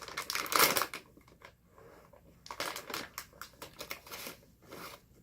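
Crunchy pretzel snack chewed close to the microphone: a loud crunch about half a second in, then a run of smaller crunches.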